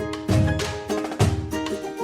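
Background music with a steady drum beat and a light melodic line over it.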